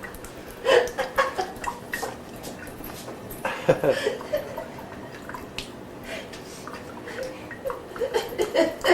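Water dripping and splashing, with many small irregular clicks. A couple of brief voice sounds break in about a second in and near the middle.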